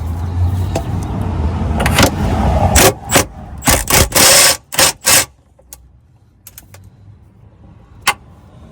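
Heat-shield fasteners being loosened with a tool under the vehicle: about three seconds of steady mechanical noise, then a run of loud short rattles and clanks that stop about five seconds in, then a few faint clicks and one sharp click near the end.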